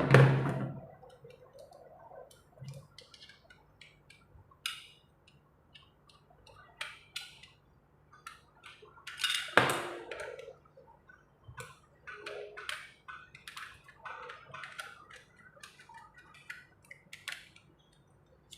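Small clicks and knocks from handling a plastic digital multimeter and its AAA batteries while the batteries are fitted into its battery compartment. Louder knocks come at the very start and about halfway through.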